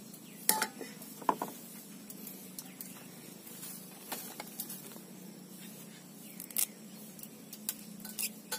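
Malunggay (moringa) sprigs being handled and their leaves stripped from the stems by hand: light rustling with scattered small snaps and clicks, over a faint steady low hum.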